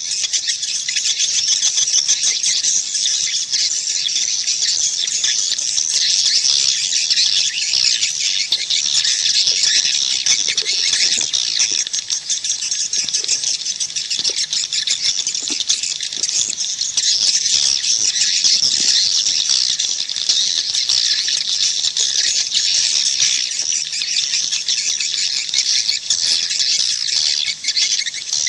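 Dense, unbroken twittering of many swiftlets, a swiftlet call recording of the kind played to lure swiftlets into a nesting house and get them to roost.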